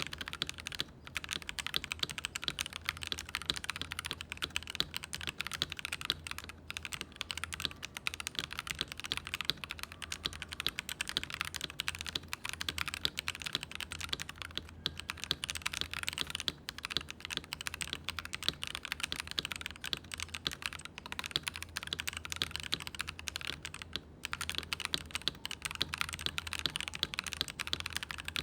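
Fast, continuous typing on a mechanical keyboard with lubed Akko Radiant Red linear switches: dense key presses with only a few brief pauses.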